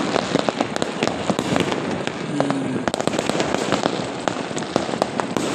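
Many fireworks and firecrackers going off across a town at once: a dense, continuous crackle of overlapping pops and bangs.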